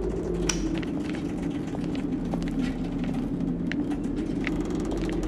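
Steady low rumble of an ocean liner's interior, with scattered light clicks and creaks.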